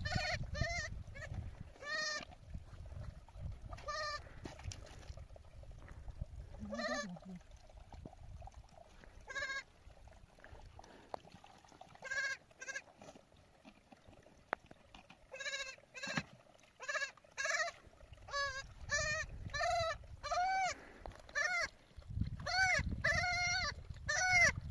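Several sheep bleating, in short wavering calls: a few scattered ones at first, then many in quick succession over the second half. There is a low rumble near the start and again near the end.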